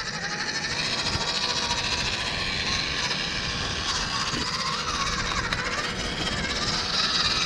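Electric motor and gearbox of a WPL 1/16 scale RC crawler truck whining as it climbs over rock, the pitch rising and falling with the throttle, over a steady hiss.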